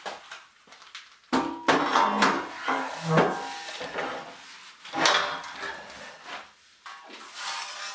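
Irregular clanks and knocks of heavy steel parts being handled and set against a steel table top during assembly of a hydraulic press frame. Several strikes leave a short metallic ring.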